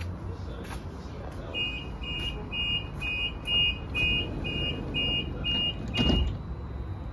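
Door-closing warning beeps on a Croydon Tramlink CR4000 tram: a high two-note beep repeating about twice a second. About six seconds in the beeps stop and a single thump follows as the doors shut.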